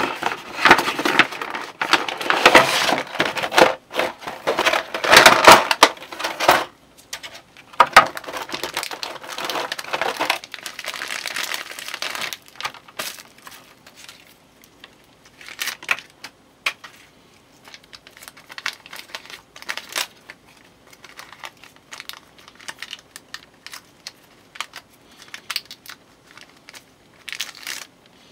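Clear plastic blister tray and plastic wrapping crinkling and crackling as a boxed figure is unpacked, dense and loud for about the first twelve seconds. After that, scattered light clicks and taps of small plastic figure parts being handled.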